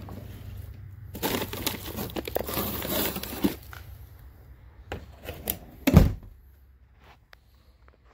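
Plastic and foil-wrapped packages crinkling and rustling as items are rummaged through in an open chest freezer, over a low hum. Then a few knocks and a heavy thud about six seconds in.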